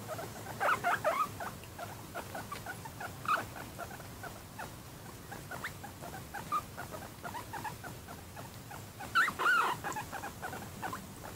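Guinea pig making many short squeaks and chirps, with louder clusters about a second in and again near the end.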